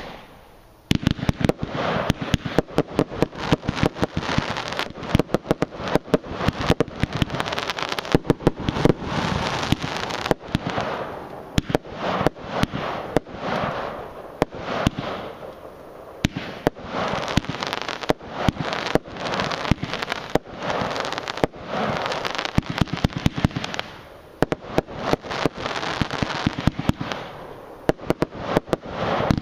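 A 50-shot firework cake firing in rapid succession: about a second in the shots start, and dense volleys of launch thumps and bursts follow, with a crackle between them. There are two brief lulls, in the middle and about two-thirds through, heard from about 50 m away.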